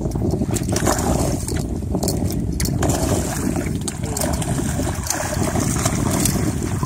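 A hooked redfish thrashing and splashing at the water's surface beside the boat as it is netted, the splashing strongest from about halfway through. A steady low rumble runs underneath.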